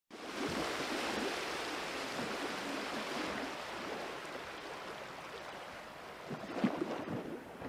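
A steady rushing hiss that cuts in suddenly and eases slightly over the next few seconds, with a few faint clicks near the end.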